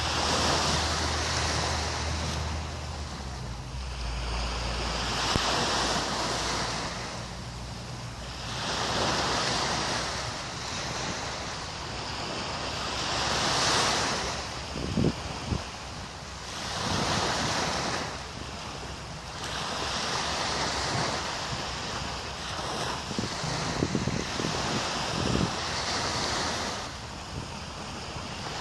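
Small waves washing onto a sandy beach, each wash swelling and fading about every four seconds, with wind buffeting the microphone and a few short gusts.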